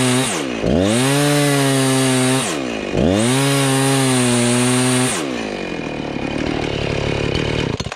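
Two-stroke chainsaw revved to full throttle three times, each run lasting about two seconds, while its PowerSharp self-sharpening attachment is pressed down so the stone grinds the chain. It then settles to a lower, rougher running.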